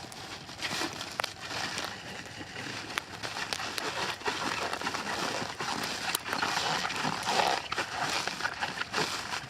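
Plastic wrap being pulled off the roll and stretched around the shelter's stick frame: a continuous crinkling rustle dotted with small crackles, growing louder from about six seconds in.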